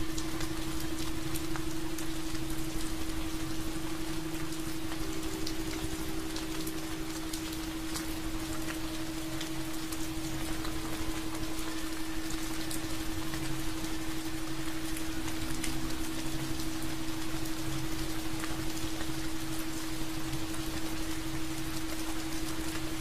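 Steady rain with many small drop ticks, over a constant low tone.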